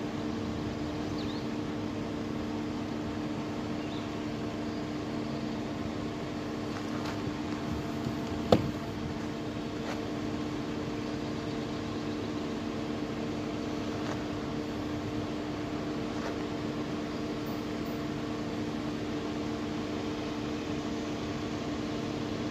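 A steady mechanical hum made of a few constant low tones over an even hiss, unchanging throughout, with one sharp click about eight and a half seconds in.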